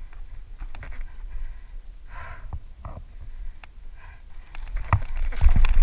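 Wind buffeting a helmet-mounted camera as a low rumble, with the rider's heavy breaths three or four times and rattling knocks from the dirt bike jolting over a rocky trail, the knocks growing louder near the end.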